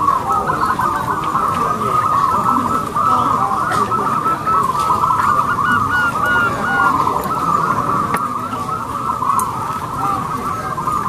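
Zebra doves (perkutut) cooing, many short coos overlapping without a pause.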